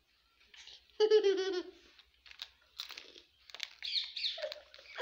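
A young girl's high, wavering drawn-out vocal sound for nearly a second, followed by the crinkling of a plastic snack packet in her hands and a few short vocal sounds.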